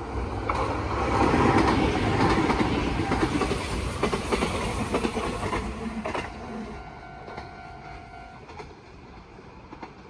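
Kintetsu electric commuter train passing close by, wheels clattering over the rail joints. Loudest in the first few seconds, it fades after about six seconds.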